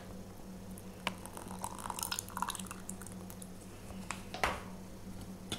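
Kefir pouring from a carton into a bowl of batter: soft dripping and splashing, with a faint click about a second in.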